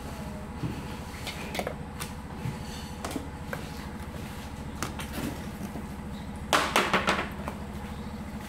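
Small taps and knocks of hard objects being handled and set down on a wooden work table, with a short clatter of several sharp knocks about six and a half seconds in.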